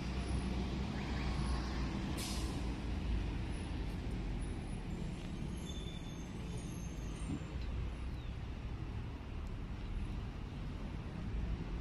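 Road traffic from the surrounding streets: a steady low rumble, with a short hiss about two seconds in.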